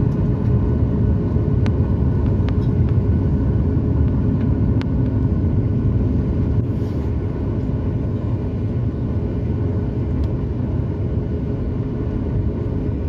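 Cabin noise of a Boeing 737 MAX 8 at the window over its CFM LEAP-1B engine, running at low taxi thrust: a steady deep rumble with a faint steady hum. A few light clicks sound over it.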